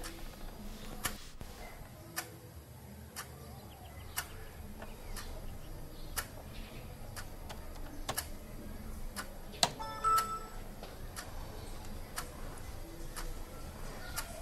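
Clock ticking at an even pace of about once a second, with a few faint short tones around ten seconds in.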